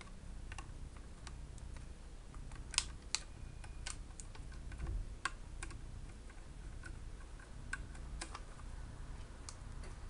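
Scattered small clicks and taps from handling laptop parts (the SSD drive in its cooling-foil wrap), irregular and faint, with two sharper clicks about three seconds in, over a steady low hum.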